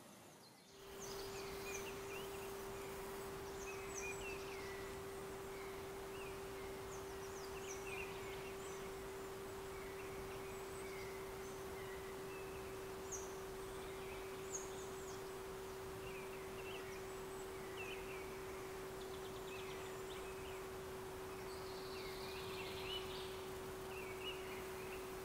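Small birds chirping with many short, high calls throughout. Under them a single steady hum-like tone sets in about a second in and holds unchanged.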